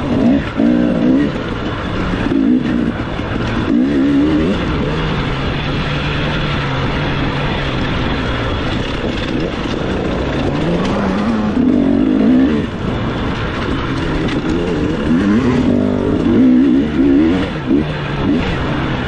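Dirt bike engine revving up and down again and again as the throttle is worked. It runs steadier for a few seconds in the middle, then climbs again.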